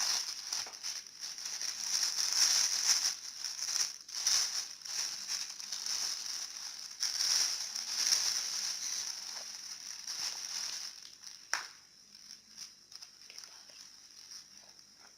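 Plastic packaging crinkling and rustling as a parcel is unwrapped by hand. The rustling is dense for about eleven seconds, then thins out, with one sharp click shortly after.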